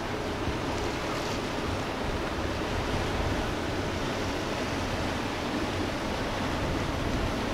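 Steady rush of water and wind with a low rumble as a Pershing 72 motor yacht idles past, its hull wake churning the water.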